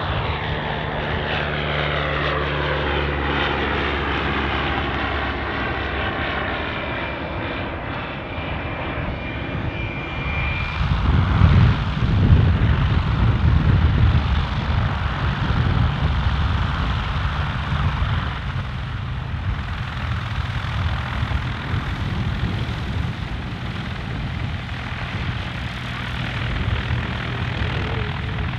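Light aircraft's piston engine and propeller droning as it climbs away after takeoff, the pitch gliding down as it passes and recedes. After about ten seconds it gives way to a second light aircraft's engine running at low power close by as it taxis, with a few loud low rumbles at first.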